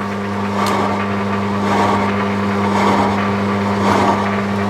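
Milling machine running under load as a face mill cutter cuts a deep step into a cast workpiece: a steady motor hum with the cutting noise swelling about once a second.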